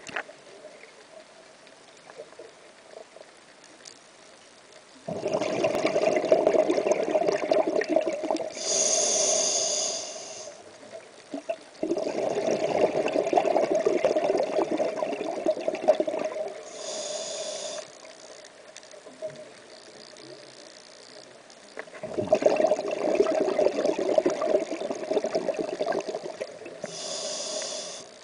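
Scuba diver breathing through a regulator underwater: three long, loud gurgling rushes of exhaled bubbles, each followed by a shorter, higher hiss of inhaling through the demand valve, with quiet gaps between breaths.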